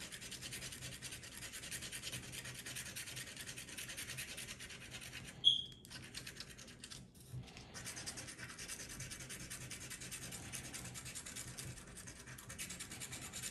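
Scratch-off lottery ticket being scratched, a fast steady scraping that pauses for about two seconds midway and then resumes. Just before the pause there is a short high squeak.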